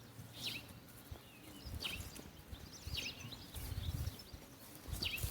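Birds chirping outdoors: short, bending high calls repeated every second or so, over patchy low rumbling noise on the microphone.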